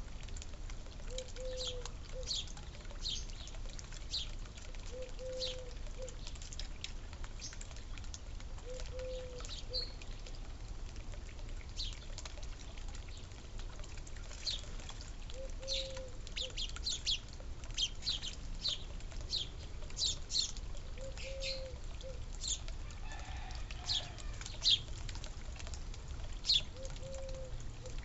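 Small birds chirping, with many short, sharp high chirps that slide downward, busiest in the middle and later part. A short low call repeats every few seconds throughout.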